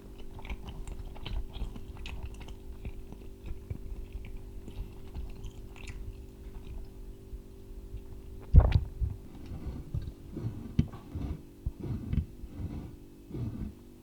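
Crunching and crackling over a steady low hum, with one loud thump about eight and a half seconds in followed by several softer thuds.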